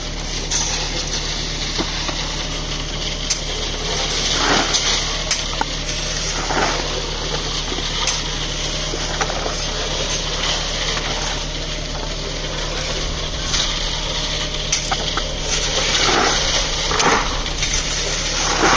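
A machine engine running steadily with a low hum, and scattered scrapes and knocks from concrete work.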